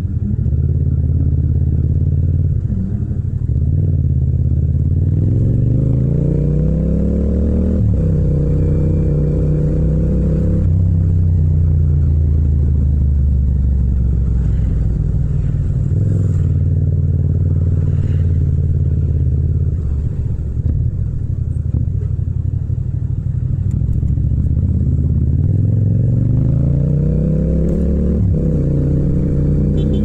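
Yamaha MT-07 (FZ-07) parallel-twin engine under way. The revs climb as it pulls away and drop sharply at a gear change about eight seconds in, then the engine holds a steady cruise. Near the end the revs rise again and drop at another shift.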